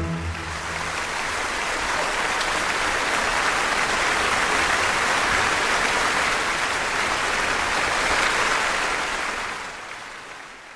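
Large theatre audience applauding as the orchestra's last chord dies away in the first second; the clapping builds to a steady dense level, then fades out near the end.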